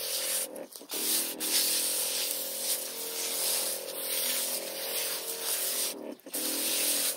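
Powered sprayer wand hissing as it sprays liquid nutrient solution onto the soil around soybean seedlings, over a steady hum from the sprayer. The spray and hum cut out briefly twice, just under a second in and again near the end.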